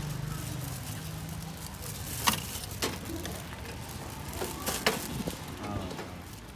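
Metal tongs clinking and tapping against a stainless-steel wire rack: a few sharp clicks, the loudest about two seconds in and a small cluster near the end, over a steady low background rumble.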